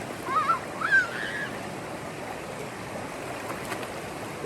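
Steady rush of water at a swimming spot, with a short high-pitched wavering call about half a second to a second and a half in.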